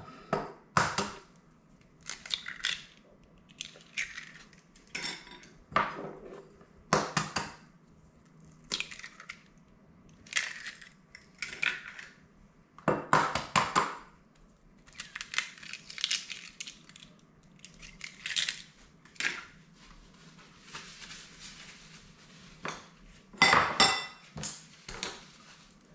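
Eggs cracked against a mixing bowl and emptied in, among clinks and knocks of bowls and utensils: a string of short, irregular sharp sounds, loudest about halfway through and near the end.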